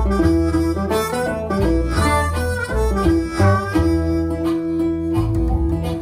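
Background music: a harmonica playing a bluesy tune over guitar, with long held notes and a steady bass line.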